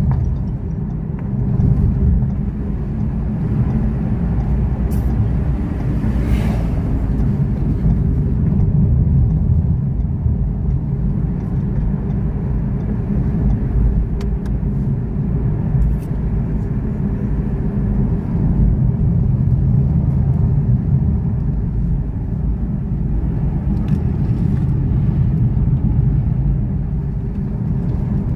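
Steady low rumble of a moving road vehicle, most likely a car, running without let-up, with a brief hiss about six seconds in.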